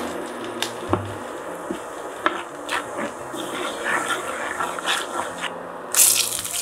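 Red pepper flakes sizzling in hot oil in a nonstick wok, stirred with a wooden spoon that taps the pan now and then. About six seconds in, the sizzle flares up loudly as sliced green onions drop into the oil.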